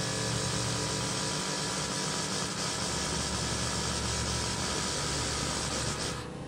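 CO2 hissing through the dual MAC solenoid valves of an MS3 Pro open-loop boost control as they fill and vent the wastegate dome line to hold a commanded 200 kPa (about 14 psi). A steady hiss that cuts off shortly before the end, over a steady low hum.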